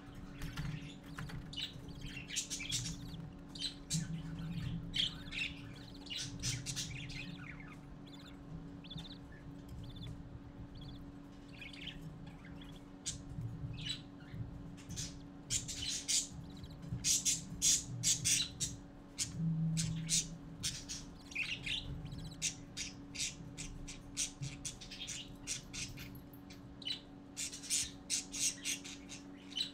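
Budgerigar chicks giving rapid, raspy begging chirps and squawks while an adult budgie feeds them, in runs of quick calls that are thickest about halfway through and again near the end. A steady low hum runs underneath.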